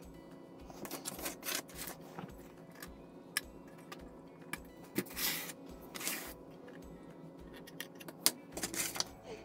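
Soft background music with a steady beat, over small clicks and a few short scraping noises from a hobby knife and fingers working at the thread rigging on a plastic model ship's mast.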